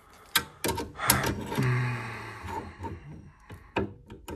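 Sharp clicks and metallic knocks of pliers and brass pipe fittings on a boiler gas valve as the connection nuts are taken up, with a longer, steadier noise lasting about a second and a half near the middle.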